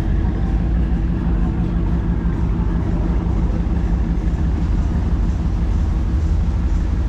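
Steady low rumble of street traffic, with a vehicle engine running close by.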